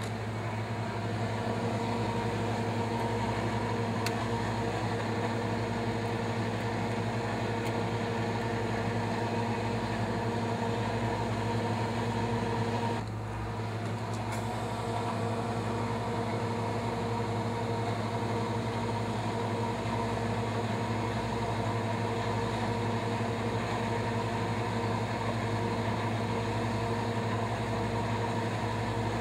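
Thermotron environmental test chamber running at high temperature, its circulating fan and machinery giving a steady hum with a few fixed tones. The level drops slightly about thirteen seconds in.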